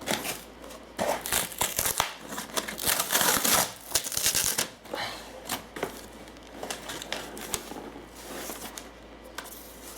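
Laptop packaging being pulled at and handled: crinkling, rustling and tearing with small knocks, loudest in the first half and quieter handling after about five seconds.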